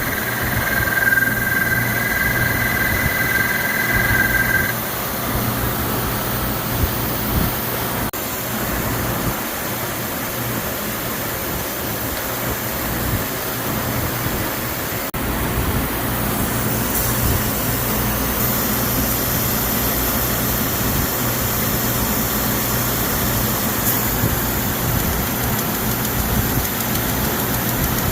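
CNC milling machine running, its end mill cutting the part. A high whine of two close tones sounds for about the first five seconds and then stops, while the steady machining noise goes on.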